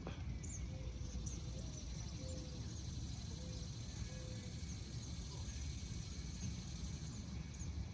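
Quiet outdoor ambience: a steady low rumble, as of wind on the microphone, with faint, scattered chirps of birds and a few soft short calls in the first few seconds.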